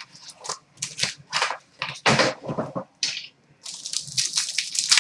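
Foil trading-card pack wrappers crinkling and tearing as hockey card packs are opened, in irregular bursts of rustling with short pauses between.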